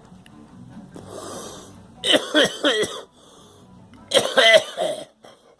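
A person coughing in two short fits of several harsh, voiced coughs each, after a noisy, wheezy breath drawn in about a second in. The coughing comes from someone sick and short of breath.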